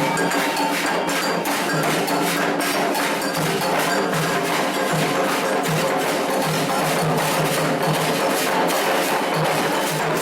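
Candomblé ritual percussion: hand drums and a struck metal bell keeping a steady, dense rhythm.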